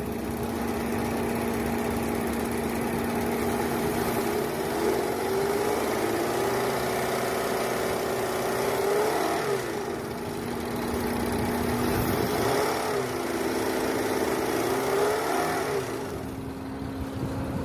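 Car engine running steadily, its pitch rising and falling a few times.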